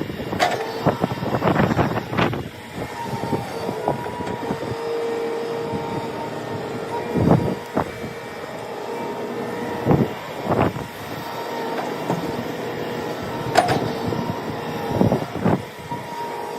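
Heavy construction machinery running with a steady whine, with sharp metallic clanks and knocks every second or few.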